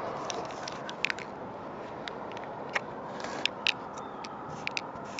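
Molotow Speedflow marker writing a tag on a painted surface: scattered sharp clicks and ticks as the tip strikes and drags through the strokes. Steady background noise runs underneath.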